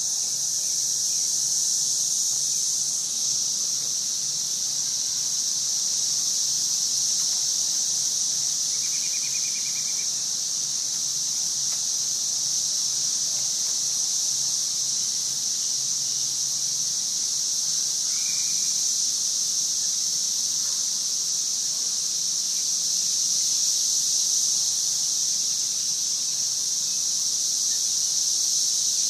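A chorus of cicadas singing: a steady, high-pitched drone that holds without a break. Two brief, faint chirps come through beneath it, about nine seconds in and again near eighteen seconds.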